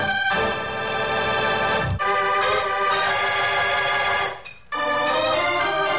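Organ playing a musical bridge between scenes of an old-time radio drama: a series of held chords that change about two seconds in, with a brief dip just past four seconds before the next chord.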